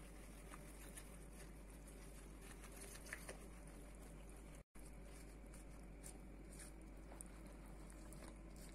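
Faint clicks and scraping of a silicone spatula against a ceramic bowl as thick semolina batter is stirred, over a steady low hum. The sound cuts out completely for an instant about halfway through.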